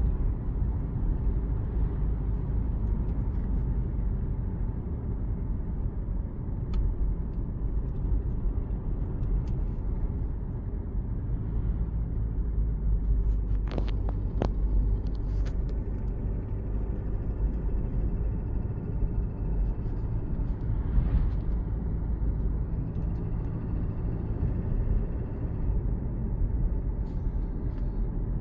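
Alfa Romeo Giulia 2.2 four-cylinder turbodiesel idling steadily on a cold engine, the state in which the owner hears an unexplained knocking clatter. A few short clicks come about halfway through.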